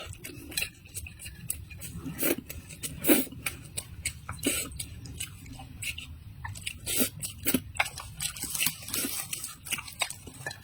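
Close-miked chewing and biting of food, with many irregular crisp crunches and mouth clicks, the sharpest about three seconds in.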